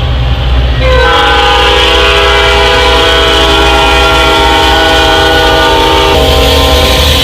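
Train sound effect: a loud, steady train noise with the horn sounding a held chord of several notes from about a second in, the chord changing about six seconds in.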